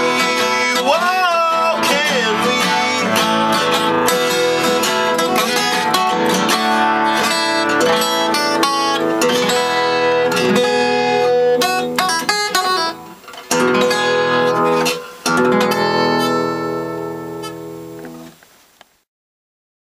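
Acoustic guitar strumming and picking out the end of a folk song, with two brief breaks near the end before the last chords ring out and fade to silence.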